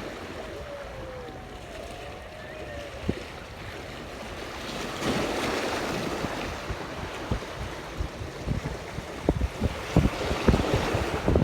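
Wind buffeting the microphone over sea water lapping at a small boat, with faint squeaky glides early on. In the second half a quickening run of sharp knocks and taps grows louder.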